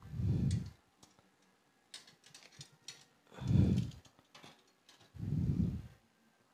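Copper wire being twisted tight around an aluminium antenna boom with pliers: scattered light clicks and ticks of wire and pliers. Three times a low, dull rumble of under a second breaks in: at the start, about three and a half seconds in, and near the end.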